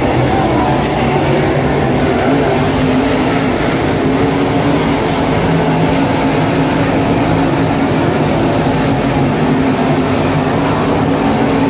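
Dirt super late model race cars' V8 engines running at speed around the track, several cars at once, making a loud, steady mix of engine notes.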